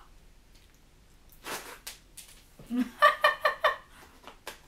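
A short breathy puff, then about three seconds in a quick burst of high-pitched giggling: rapid short laughs of around ten a second, the loudest sound here.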